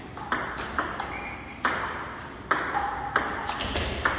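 Table tennis rally: the ball clicks sharply off the bats and table, about five hits roughly half a second to a second apart.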